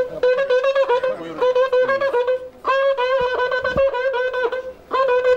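A wind instrument playing fast, repeated notes on about one pitch, in short phrases with brief pauses between them.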